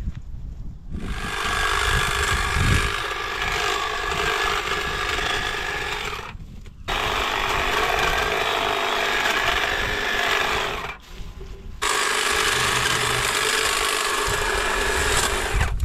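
Hedge trimmer blades running as it cuts into a bush, a steady buzz that stops briefly twice and starts again.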